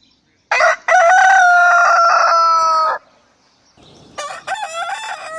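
A rooster crowing twice. The first crow starts about half a second in and is a long held note that sinks slightly before cutting off around three seconds. A second crow begins near the end.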